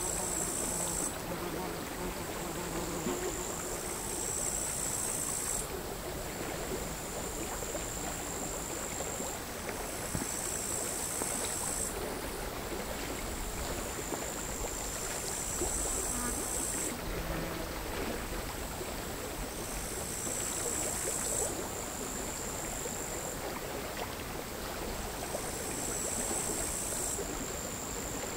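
Crickets singing: a steady high trill with louder buzzing phrases of a second or two about every five seconds. Under it, quiet, irregular sea waves lap against the shore.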